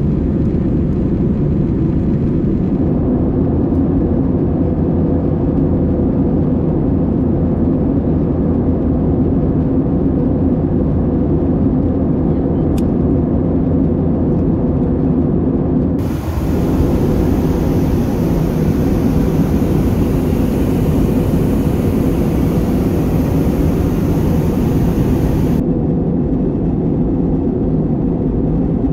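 Steady drone of an Airbus A320-232's IAE V2500 engines and airflow, heard from inside the passenger cabin. Its hiss changes abruptly a few times along the way.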